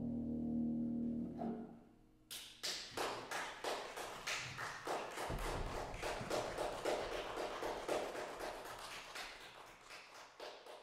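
The concert harp's final chord rings and dies away over the first second and a half. After a short hush, a small audience starts clapping about two seconds in, a dense patter of handclaps that slowly thins and fades.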